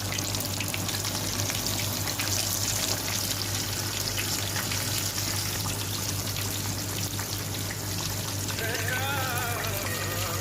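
Flour-coated whole fish frying in hot oil: a steady sizzle with dense crackling and popping. Music fades in near the end.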